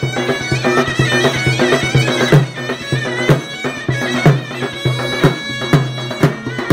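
Yezidi Kurdish folk dance music: a loud wind melody over a steady drone, driven by a drum beat about twice a second.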